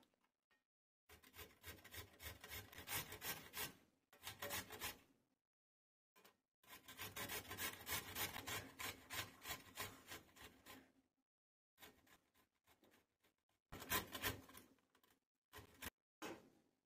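Carrots being grated on a flat stainless steel grater: runs of quick rasping strokes with short pauses between them.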